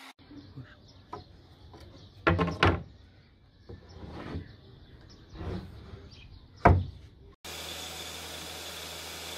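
A few short knocks and scrapes, the loudest about two and a half seconds in and again near seven seconds. Then, about seven and a half seconds in, a router's steady running noise with a low hum cuts in abruptly.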